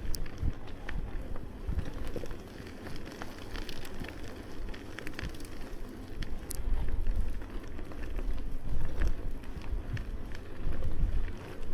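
Bicycle ridden over snowy streets: wind buffeting the bike-mounted camera's microphone as an uneven low rumble, with crackling from the tyres and scattered small clicks and rattles.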